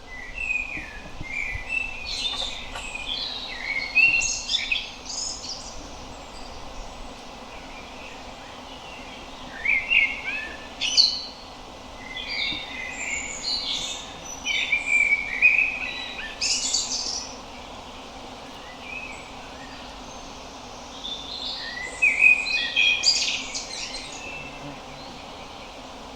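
Common blackbird singing: varied warbling, twittering phrases in three bouts with pauses of a few seconds between them, over a faint steady background noise.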